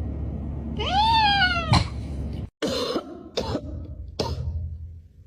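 A cat meows once, a drawn-out call that rises and then falls in pitch. About a second later come three short, sharp sounds, spaced apart.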